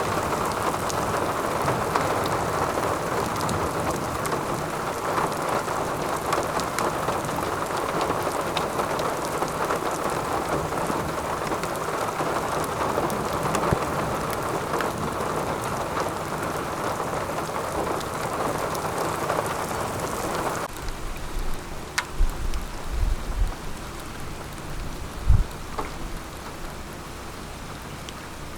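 Heavy rain falling steadily, which thins abruptly to lighter rain about twenty seconds in. A few short low rumbles follow near the end.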